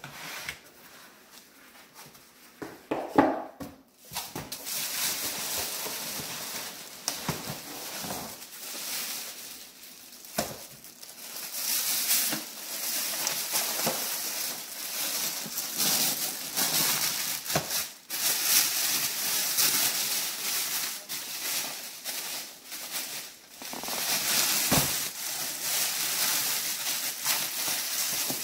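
A few knocks and scrapes of cardboard packing, then, from about four seconds in, a clear plastic bag rustling and crinkling steadily as it is handled around the pot inside it.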